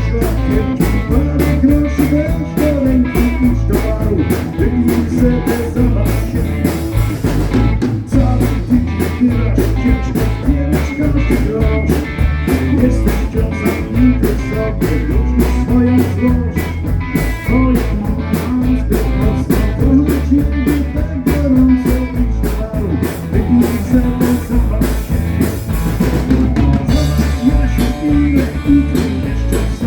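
Live band playing rock music with a drum kit, bass and electric guitar, a steady beat throughout.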